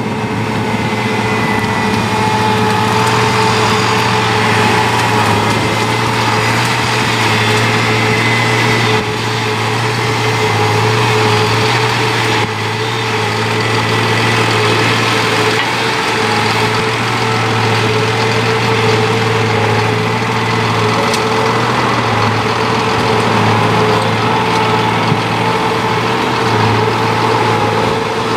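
Engine of a wood chipper or tree-cutting machine running steadily, with a constant hum and whine. The level dips briefly twice, about a third of the way in.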